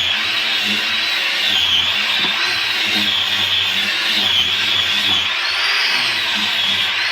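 Electric drill running continuously, its motor whine rising and falling in pitch as the speed varies.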